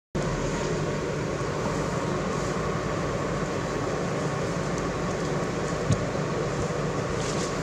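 Steady low rumbling background noise with a faint hum, and a single click about six seconds in.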